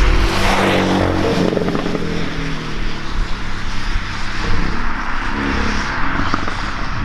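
Porsche 718 Cayman GTS's turbocharged flat-four engine pulling under load, heard along with a strong, steady rush of road and wind noise.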